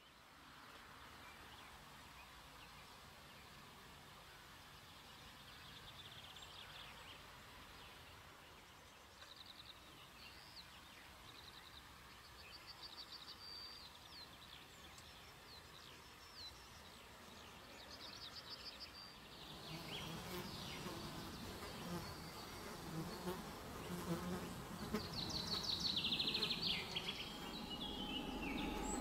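Insects buzzing in quiet outdoor ambience, with short high chirps and trills throughout. From about two-thirds of the way in, a low rumble comes up and the sound grows louder.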